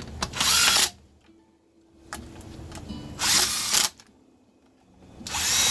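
Stihl MS 250 chainsaw's recoil starter pulled three times, the rope whirring out as the engine spins over with its spark plug out. Each pull lasts a little under a second.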